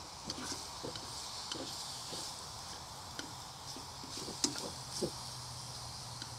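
Diced beef frying gently in oil in a pan: a faint steady sizzle, kept low to seal the meat slowly, with scattered small pops and clicks.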